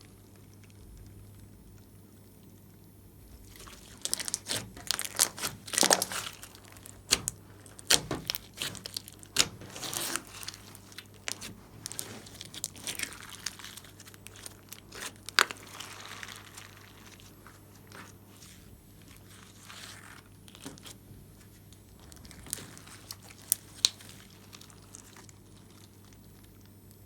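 Hands squishing, folding and stretching slime, giving dense clusters of small sticky clicks and crackles that begin a few seconds in, are busiest for about ten seconds, then thin out to scattered pops.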